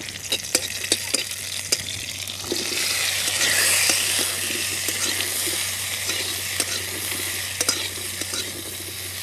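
Metal spatula scraping and clicking against an aluminium kadai as pieces of amra (hog plum) are stirred in hot oil with spices, over a steady sizzle. The sizzle grows louder about two and a half seconds in.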